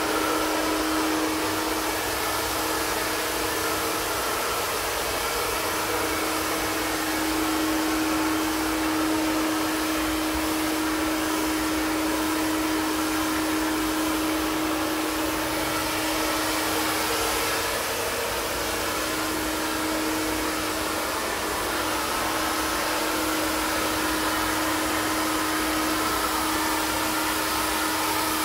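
iTeraCare terahertz handheld health blower running steadily, its fan blowing air with a constant whooshing rush and a steady low hum.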